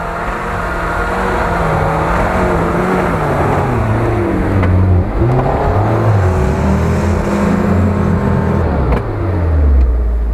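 Off-road SUV's engine revving through deep snow, its pitch rising and falling again and again as the throttle is worked.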